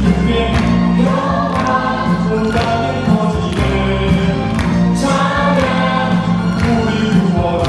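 Church praise team singing together in chorus over instrumental accompaniment with a regular beat.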